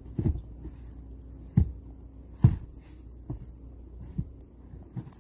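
A series of dull thumps, about one a second and uneven, over a low steady hum.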